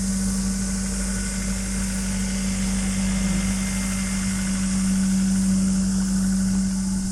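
Water pump machinery running with a steady hum, one constant low tone that never changes, over a steady high hiss.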